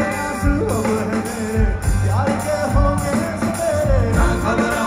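Live rock band playing through a concert PA: a lead singer's melody over electric guitars, keyboards and a drum beat.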